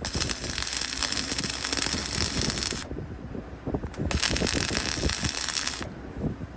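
Electric arc welding: the arc crackles and hisses in two runs, about three seconds and then about two seconds, with a short pause between them, as a dog clamp is tacked onto the steel.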